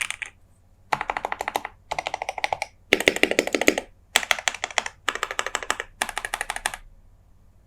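Typing on a KBD67Lite mechanical keyboard with lubed and filmed JWK Alpaca V2 linear switches, a polycarbonate plate and PBT keycaps. There are six quick bursts of rapid keystrokes, each a little under a second long, with short pauses between them. The typing stops about a second before the end.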